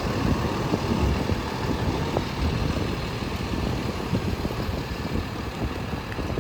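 Diesel engine of a Freightliner M2 truck running steadily at idle, with a rough low rumble.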